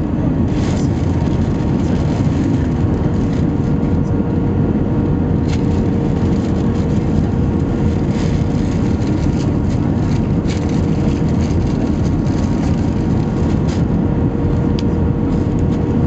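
Steady cabin noise inside an Airbus A320-214 on final approach with flaps extended: a low, even rush of airflow over the fuselage mixed with the hum of its CFM56-5B engines.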